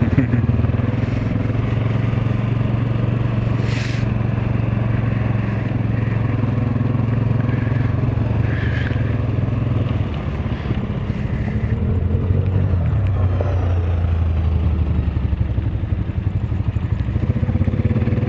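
Honda Rubicon ATV's single-cylinder four-stroke engine running under way. Its note drops about ten seconds in and climbs again a couple of seconds later, with a few brief clatters from the machine over the trail.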